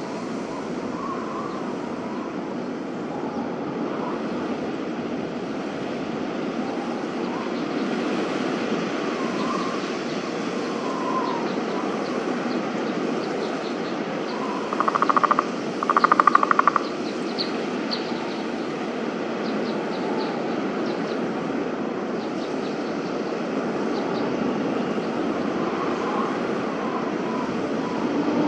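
Outdoor winter ambience: a steady rumbling background with faint chirps, and two short, louder sounds about halfway through.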